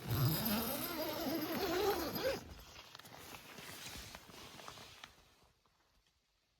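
A tent door zipper pulled open in one long drag of about two seconds, its buzz rising in pitch, followed by softer rustling and movement that fades out.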